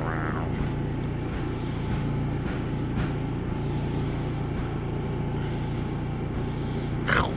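Steady low mechanical hum, like a running motor, with faint light knocks and a short high-pitched squeal near the end.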